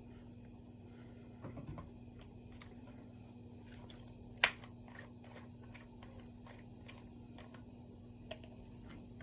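Close-up mouth sounds of someone eating steak and cheese: soft chewing with scattered wet clicks, and one sharp click about four and a half seconds in. A steady electrical hum runs underneath.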